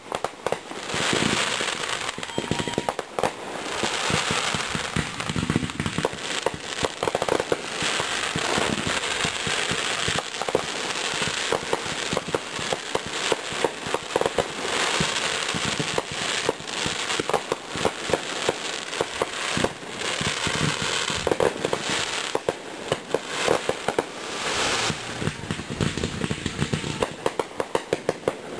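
Fireworks display going off continuously: a dense, rapid run of sharp cracks and pops, many close together, over a hissing background.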